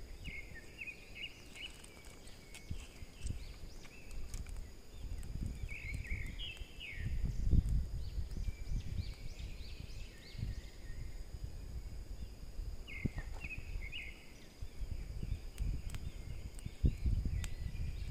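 Birds chirping in short clusters every few seconds over a steady high insect drone. Occasional low knocks and rustling are mixed in, the loudest about halfway through and near the end.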